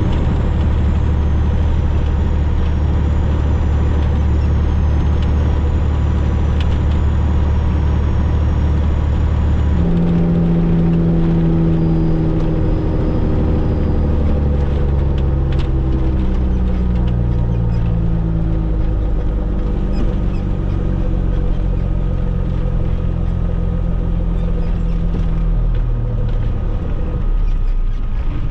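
Semi truck's diesel engine running while under way, with heavy road and wind noise. For the first third the drone is steady. From about a third of the way in, the engine note is heard more clearly and steps up and down in pitch as the gears change.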